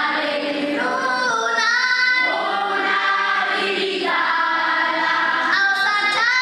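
A choir of many voices singing together in worship, holding long sustained notes and moving to a new chord every second or two.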